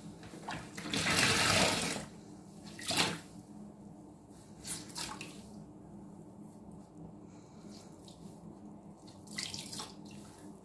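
A soapy green sponge squeezed over a tub of dish-soap water: wet squelching with water streaming out. The longest, loudest gush comes about a second in, followed by shorter squelches and trickles near three, five and ten seconds.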